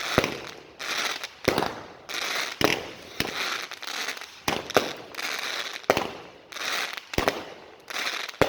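Brothers Fireworks MAGICOLOGY 21-shot, 500-gram cake firing its shots one after another. There is a sharp report about every second or so, and each is followed by about a second of noisy hiss from the break in the air.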